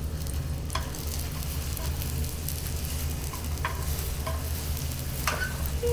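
Beaten egg sizzling in a frying pan as a tamagoyaki omelette is worked and rolled with chopsticks, with a few light clicks of the chopsticks against the pan.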